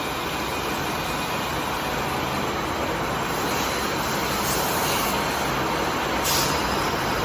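CNC lathe running while turning a part: steady machining noise, with a few short high hisses from about three seconds in.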